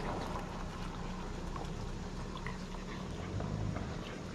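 Boston terrier chewing and licking a treat from a hand: scattered small wet clicks and smacks, over a steady low hum.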